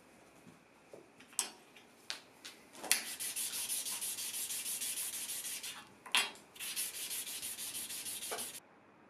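A small brass plate rubbed fast back and forth on a sheet of sandpaper, a rapid, evenly repeating scratchy run of strokes from about three seconds in, broken by a short pause around six seconds and stopping abruptly shortly before the end. A few sharp clicks come before and between the runs.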